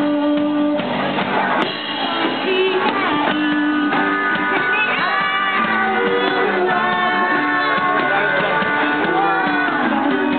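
A live band playing a song: a girl's voice singing a melody over guitar and a drum kit, heard through the band's small amplifiers.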